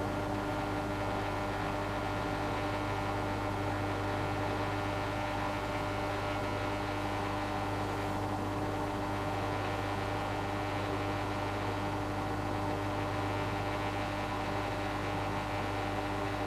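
Cookology countertop dishwasher running mid wash cycle: a steady, even hum with no let-up.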